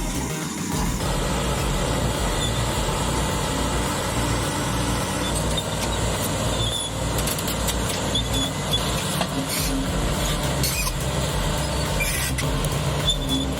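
Heavy diesel engine of a large crawler bulldozer running steadily under work, with a few short high squeaks and metallic clanks in the second half.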